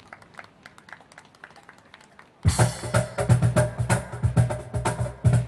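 Faint scattered taps, then about two and a half seconds in a piano and cajon come in loudly together, playing a fast, driving instrumental with hard percussive hits and low cajon thumps.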